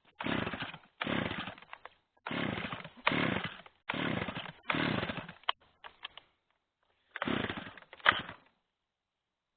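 Stihl 009L top-handle chainsaw's two-stroke engine revved in short bursts: six quick revs, then one more after a pause.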